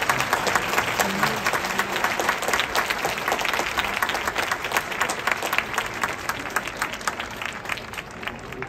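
Large crowd of spectators applauding, dense clapping that thins out and fades toward the end.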